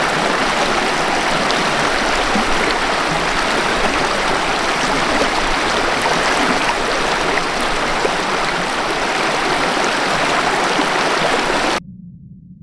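River water rushing steadily over rocks. It cuts off suddenly near the end, leaving a faint low hum.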